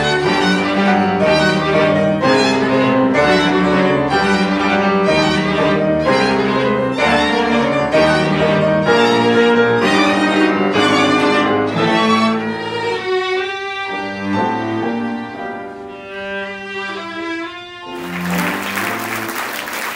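Violin, viola, cello and grand piano playing classical chamber music, loud and busy for the first twelve seconds or so, then quieter and sparser as the piece closes. Audience applause breaks out about two seconds before the end.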